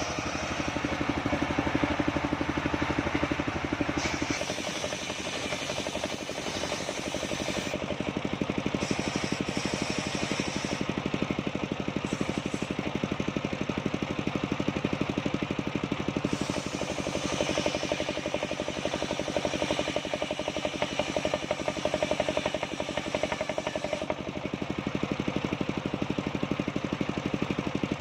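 Engine-driven band sawmill running steadily, its motor's rapid even pulsing heard throughout, with the tone shifting a few times as the load changes.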